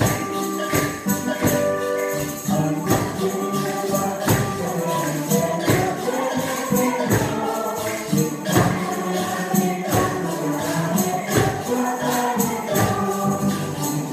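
A group of voices singing a Colombian folk song together, over a steady beat struck on a large rope-tensioned drum, with jingling tambourine and shakers.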